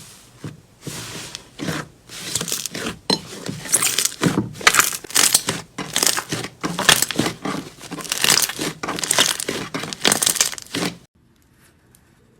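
Slime being squeezed and stretched by hand, giving a quick irregular run of crackling, crinkling sounds that cuts off suddenly about eleven seconds in.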